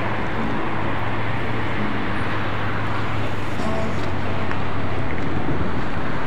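A loaded lorry creeps past close by, its diesel engine running with a steady low hum over the road noise of highway traffic.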